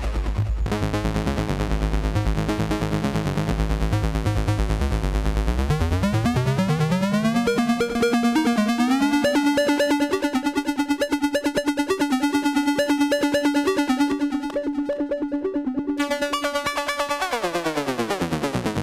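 Prototype Seeeduino Xiao-based wavetable VCO (a DIY Eurorack oscillator) sounding a buzzy tone rich in overtones, its timbre shaped by 'overflow folding', where the wavetable overflows to give a hard-sync-like effect. The pitch glides up about six seconds in, holds, then glides back down near the end, with a fast pulsing throughout.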